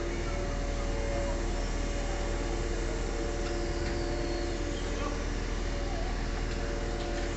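Truck engine running steadily to power a truck-mounted crane lifting hollow bricks, a low rumble with a steady whine over it.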